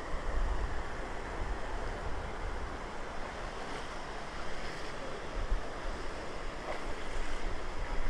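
Steady rush of shallow river water spilling from concrete culverts, with wind buffeting the microphone in low gusts.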